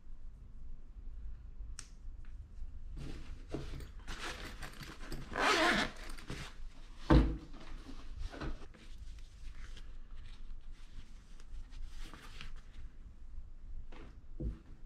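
Close handling noises of a watch and fabric at a stone counter: light clicks and cloth rustles throughout. There is a louder rasp of a fabric pouch about five seconds in, then one sharp knock a little after seven seconds.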